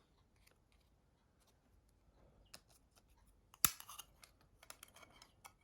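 Faint clicks and light scrapes of small mobile-phone parts being handled and prised apart, with one sharper click about two-thirds of the way through.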